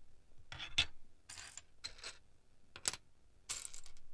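Loose plastic Lego pieces clattering on a tabletop as a hand rummages through the pile, in about five short bursts of rattling.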